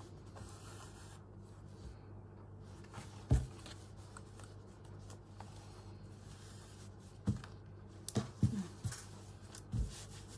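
Faint rustling and scratching of fabric and thread being handled during hand stitching, broken by several short knocks of things set down or bumped on the work surface, most of them near the end, over a steady low hum.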